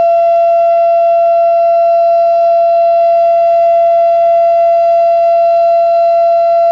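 Federal Signal Thunderbeam (RSH-10) outdoor warning siren, its reflector disc broken, sounding the steady alert signal: one loud, unwavering tone with strong overtones, holding the same pitch throughout.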